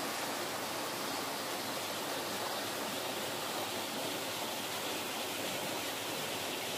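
Shallow creek flowing over rocks, a steady rush of water.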